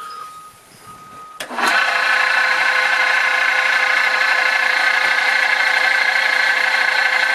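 Delta Rockwell table saw switched on about a second and a half in with a click, its motor and 7 1/4 inch blade then running up to a loud, steady whine at constant speed.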